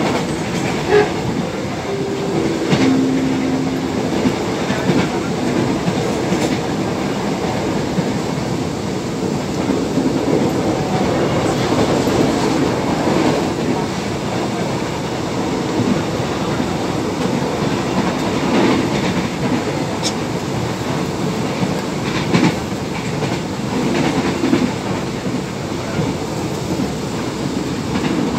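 Steady running noise of a KRL electric commuter train heard from inside the carriage while it is under way, with occasional clicks from the wheels crossing rail joints.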